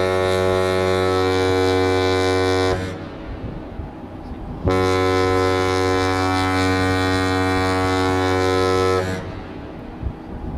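Cruise ship's horn sounding two long, deep blasts, the first about three seconds long, the second about four seconds after a short gap, each dying away in an echo.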